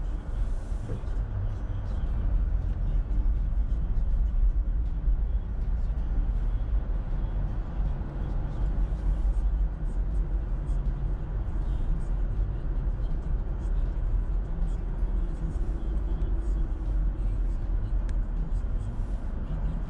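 Car driving along a city street: a steady low rumble of engine and tyre noise.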